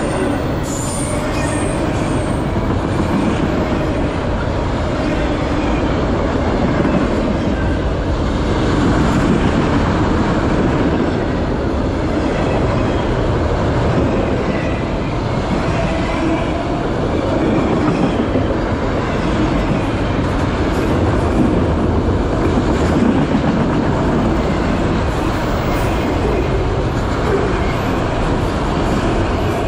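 Autorack freight cars rolling past close by: a steady, loud rumble and clatter of steel wheels on the rails, with faint wavering high-pitched tones coming and going.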